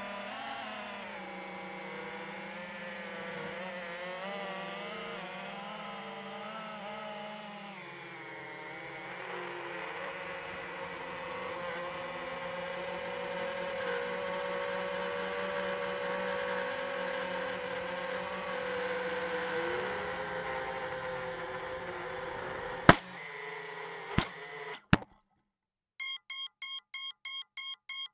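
Electric motor and propeller whine of an FPV aircraft in flight, its pitch rising and falling with the throttle over wind rush, ending in three sharp knocks as it comes down in tall grass. A rapid, regular beeping, about four a second, follows near the end.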